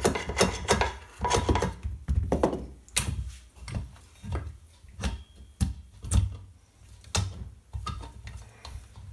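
A soft-faced mallet knocking on an ABAC B2800 compressor pump to free the cylinder block from the crankcase, then irregular knocks and clinks of metal as the block is worked loose and lifted off the pistons.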